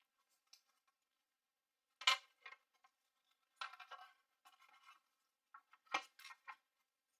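Small metal and plastic PC parts being handled while a CPU cooler is fitted to the motherboard: two sharp clicks with a short ring, about two and six seconds in, with light scraping and rattling between them.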